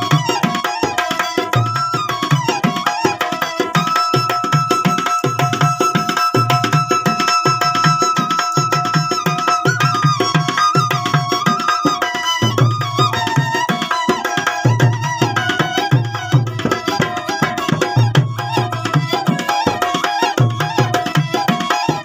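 Alghoza double flute playing a melody on one pipe over a steady drone from the other, with a barrel drum struck by hand keeping a steady, even beat underneath.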